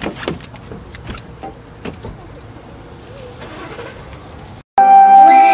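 A faint, low background rumble with a few soft knocks and clicks. Near the end it cuts out, and loud holiday background music starts abruptly.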